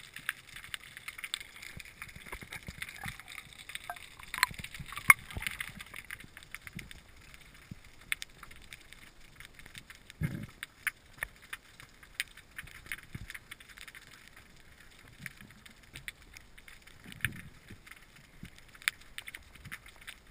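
Underwater ambience picked up through a camera housing: a steady crackle of many scattered sharp clicks, with a short low thud about ten seconds in.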